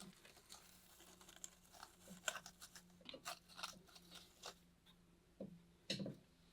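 Faint crackling and rustling of hands pressing a small vining fig and its root ball onto wood, with scattered soft crunches, most of them between about two and four and a half seconds in and two more near the end.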